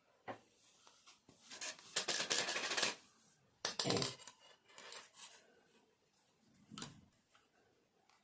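Knitting handling sounds: light clicks of bamboo knitting needles and the rustle of yarn and hands as stitches are threaded onto a needle, with two louder rustling stretches about two and four seconds in.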